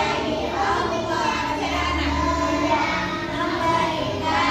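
Children's voices singing a song.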